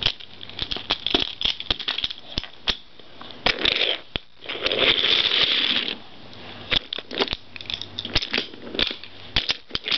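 Toy trains and trucks being handled and pushed about on plastic track over carpet: many sharp clicks and small plastic knocks, with a stretch of scraping and rustling in the middle.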